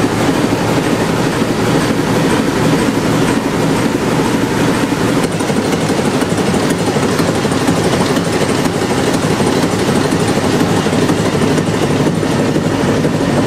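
Werkspoor TM356 320-litre six-cylinder engine running steadily, with a dense, even knocking rhythm.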